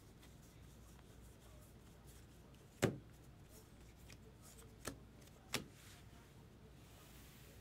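A few light knocks and clicks of trading cards and packs being handled and set down on a tabletop, the loudest about three seconds in and two more about two seconds later.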